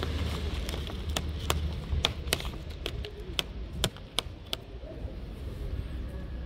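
About ten sharp, irregular taps or clicks over a few seconds, above a steady low rumble.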